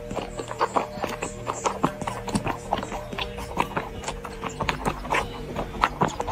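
Tabby cat suckling milk from a baby bottle: quick, irregular wet clicks and smacks, several a second, over background music with held notes.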